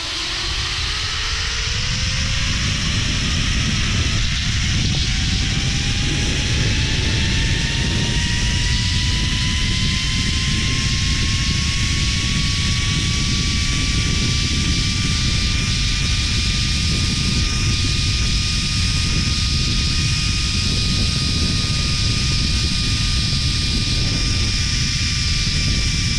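Zipline trolley pulleys running along a steel cable: a whine that rises in pitch for the first fifteen seconds or so as the rider gathers speed, then holds steady. Heavy wind rush on the microphone underneath.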